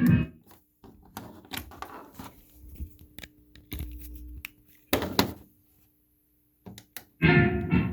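Scattered clicks, knocks and light handling noise in a break in the music, with a louder double click about five seconds in and a faint steady hum in the middle. Music starts again through the speakers near the end.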